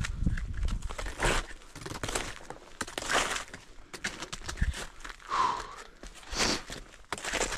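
Snowshoe footsteps crunching in snow, about one step a second.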